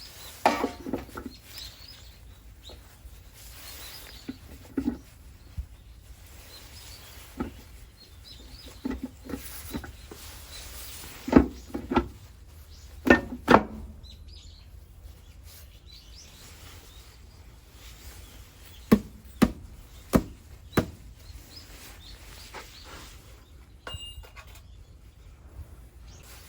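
Scattered sharp knocks and clinks of tools and metal parts being handled, over a low steady hum. The loudest come as a pair about eleven seconds in, another pair about two seconds later, and four quick ones around nineteen to twenty-one seconds in. A brief high ringing tone sounds near the end.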